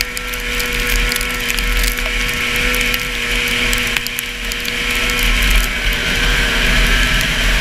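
Racing snowmobile's two-stroke 440 engine running hard at steady high revs, heard from on board the sled, with many small clicks over it; the revs dip briefly about six seconds in and pick up again.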